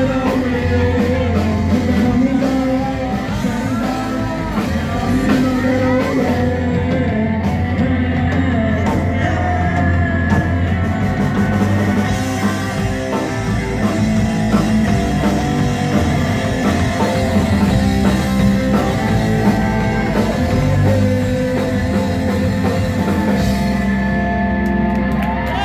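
A live rock band playing loudly: electric guitars, bass and drum kit, with a singer.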